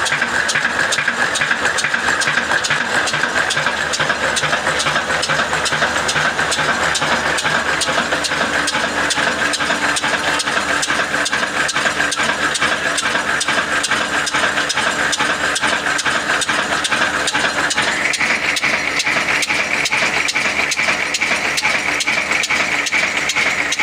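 Slow-speed 22 HP, 300 RPM diesel engine running steadily, with a high whine that steps up in pitch about eighteen seconds in.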